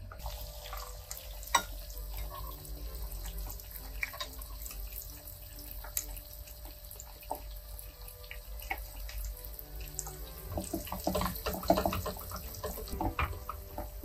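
Flour-coated chicken cutlets frying in hot oil in a pan: a steady sizzle with scattered crackles and pops, growing busier and louder for a few seconds near the end.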